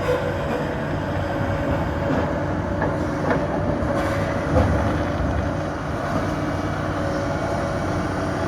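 Excavators' diesel engines running steadily with a constant whine, and a few knocks and clanks from the machines working rocks, the heaviest thud about four and a half seconds in.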